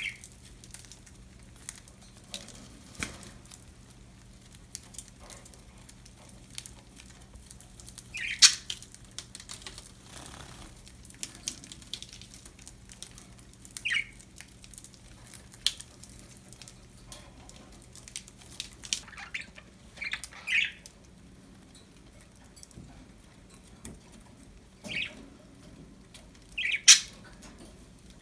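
Pet budgerigars giving short, sharp chirps every few seconds, loudest about eight seconds in and near the end, over scattered light clicks and scratches.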